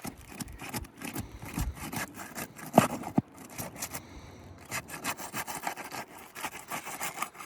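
Asphalt roof shingles (GAF Royal Sovereign) being pried and peeled up from their sealant strips: repeated scraping and crackling as the bond tears loose, with a sharp knock about three seconds in.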